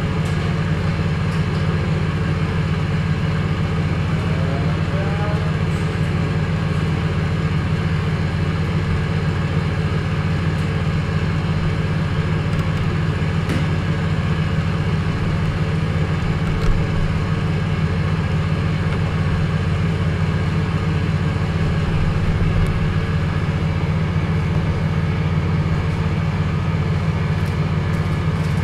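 A steady, loud low drone that holds unchanged throughout, with a faint thin hiss above it.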